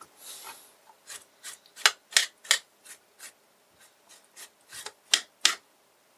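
Serrated knife scraping the charred, steamed skin off a roasted green chili pepper on a cutting board: about a dozen short, scratchy strokes, roughly two a second.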